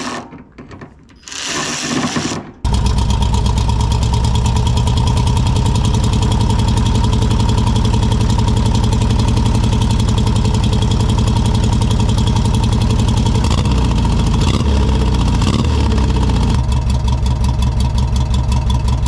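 Twin-carburettor car engine being cranked by the starter and catching about two and a half seconds in, then running steadily at idle. Near the end the revs waver briefly and the idle turns uneven and pulsing, as the carburettors are still being tuned.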